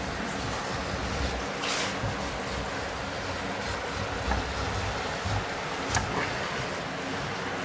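Knife blade scraping along a straightedge as it scores a sheet of fiber cement board (Hardie board): a gritty scrape, with a few sharp clicks later on.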